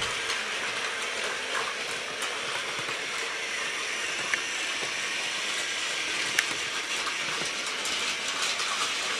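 Battery-powered Plarail Thomas & Friends toy trains running on plastic track: a steady whir of their small motors and wheels, with two sharp clicks about four and six seconds in.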